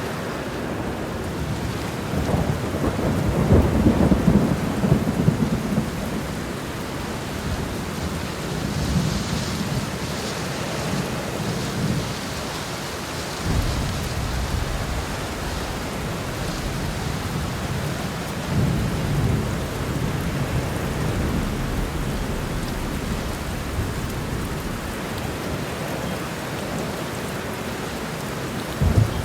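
Heavy, steady rain with thunder rolling again and again over it; the loudest, longest roll comes a few seconds in, with shorter rumbles later and one more right at the end.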